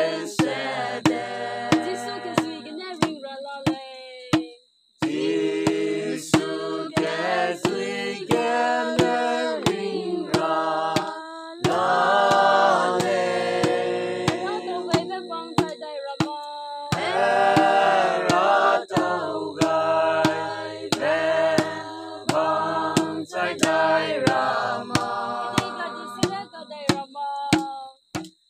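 A group of people singing a song together without instruments, in held notes and phrases with a short break about five seconds in, while sharp taps keep a steady beat about twice a second.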